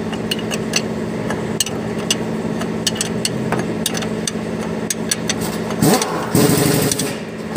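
An engine running steadily in the background, with scattered light metallic clicks from a wrench being handled on a truck's air fittings. Near the end a brief louder rush of noise cuts in.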